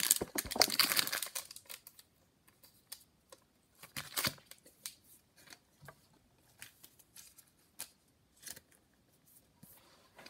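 Foil trading-card pack wrapper crinkling and tearing open for about a second and a half, then scattered soft rustles and clicks of cards being handled.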